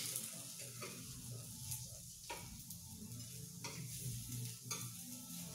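Meat sizzling steadily on the hot plate of an electric raclette grill. A few light clicks come from the utensil turning it on the plate.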